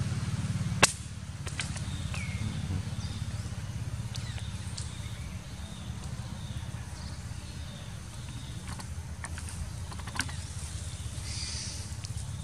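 A motor engine running steadily with a low, fast-pulsing drone. A sharp click comes a little under a second in, with a few weaker clicks and a short chirp later.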